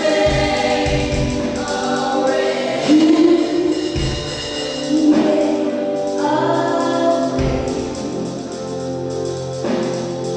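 A church choir and congregation singing a gospel song, with instruments and percussion keeping the beat.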